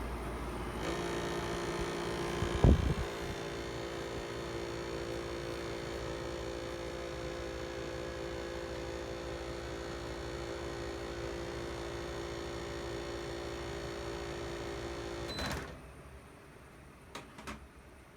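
Haier JA-16R window air conditioner running with a steady hum made of several steady tones, the unusual noise a new unit of this model is making. There is a sharp knock about three seconds in. Near the end the unit cuts off with a click, and a couple of faint clicks follow.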